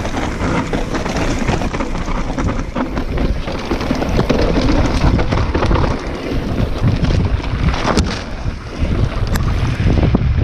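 Wind buffeting an action camera's microphone as an enduro mountain bike rides fast down a dirt trail, with tyre rumble and a steady rattle and clatter from the bike over the bumps. Two sharper knocks stand out in the last few seconds.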